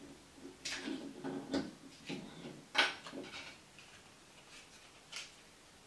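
Handling clicks and knocks from an air freshener's plastic housing as the battery contacts and wires are worked out of it: a run of short sharp clicks, the sharpest about three seconds in, then fewer with one more near the end.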